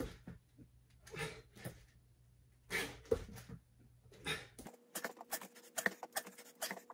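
A man breathing hard from exertion, heavy exhales about every second and a half over a low hum. About two-thirds of the way in the hum cuts off and a run of quick, faint ticks and taps follows.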